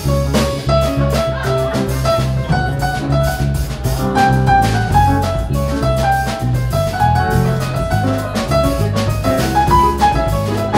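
Jazz trio playing: a piano melody over a bass line and a drum kit keeping time on the cymbals.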